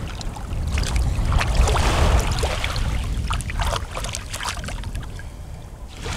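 Shallow seawater lapping and splashing around a baby's hands and feet as he paddles and pats at it, under a steady rumble of wind on the microphone.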